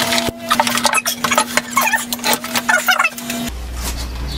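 Knocks and clatter of wood and metal parts being handled as a homemade power hammer is taken apart, over a steady hum that changes to a lower hum near the end.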